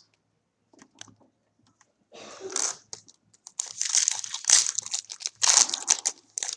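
A trading card pack wrapper being crinkled and torn open by hand, in irregular loud crackling bursts that begin about two seconds in.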